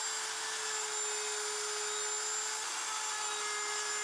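Router on a router table running a round-over bit, a steady whine with a hiss as the bit rounds over the edge of a cherry workpiece.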